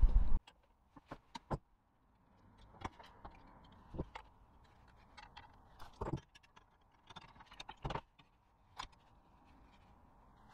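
Scattered metallic clicks and clinks from pliers and an adjustable spanner on the brass compression nuts of a gas tap and its copper gas pipe, as the fittings are undone and handled. The louder knocks come irregularly every second or two.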